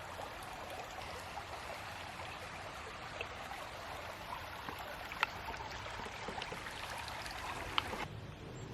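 A shallow creek running and trickling over rocks, a steady rushing with a couple of faint ticks. It drops away suddenly near the end.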